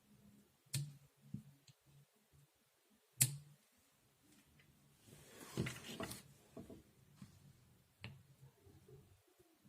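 A few sharp clicks, one about a second in and a louder one about three seconds in, then a short burst of clattering and rustling around the middle, and another click near the end, over a faint low hum.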